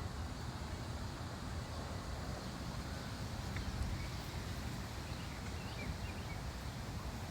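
Bryant Sentry 2-ton central air conditioner condenser running steadily, its Copeland scroll compressor and fan making a low, even hum, with a few faint bird chirps.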